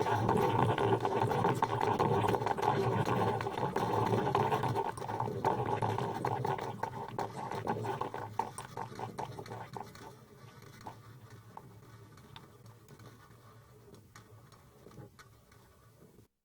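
Coffee machine running with a steady churning noise that breaks into rapid clicks about eight seconds in, then fades away until it is very faint.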